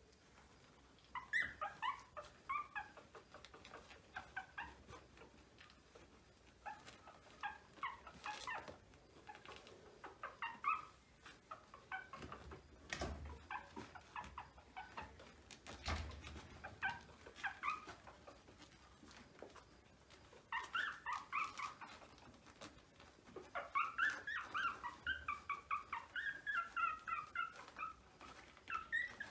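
Very young Maltese puppies whimpering and squeaking in short, high-pitched cries that come in bursts, busiest toward the end. Two dull thumps sound near the middle.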